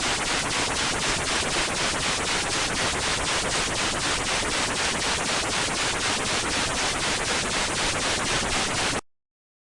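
Loud electronic static hiss, pulsing in a rapid even rhythm of about four or five pulses a second. It cuts off suddenly into dead silence near the end.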